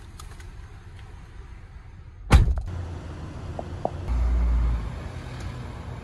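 A vehicle door slams shut with one loud thud a little over two seconds in, against a steady low hum of road traffic. A brief low rumble follows about four seconds in.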